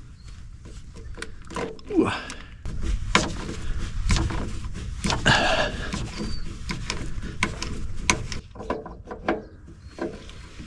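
Tractor fuel filter being twisted off by hand with a rag: scattered clicks and knocks of the canister and hands against the housing, the filter being tight. A person grunts with the effort, once about two seconds in.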